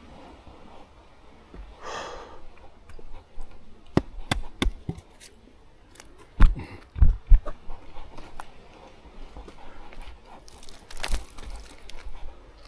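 A hiker's footsteps and scuffs on a trail, with irregular clicks and knocks, a few heavier thumps six to seven seconds in, and brief rustles.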